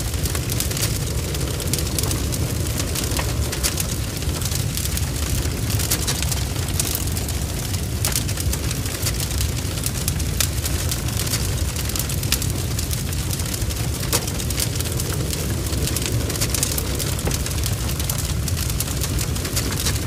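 Wood fire burning: a steady low rumble of flames under dense, irregular crackling and spitting of burning logs.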